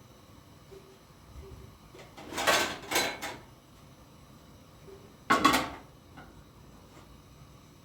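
Short handling clatter of household things being moved: two bursts close together about two and a half seconds in, and one more about five and a half seconds in.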